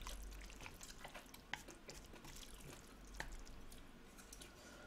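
Chopsticks working through a pan of saucy instant ramyeon noodles, faint, with a few light clicks of the chopsticks against the pan and bowl.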